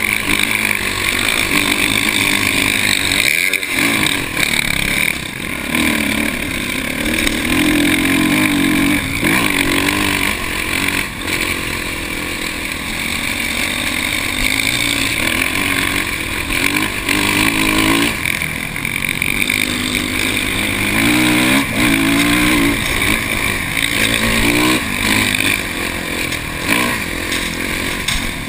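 Kawasaki dirt bike engine being ridden hard, revving up and down as the throttle opens and closes, with a brief drop in revs about three and a half seconds in.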